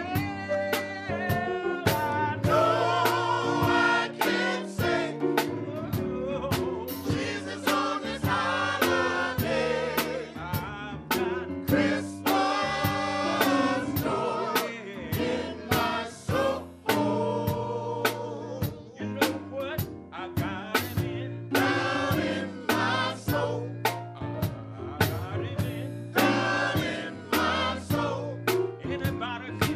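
Men's choir singing a gospel song with instrumental accompaniment over a steady percussive beat.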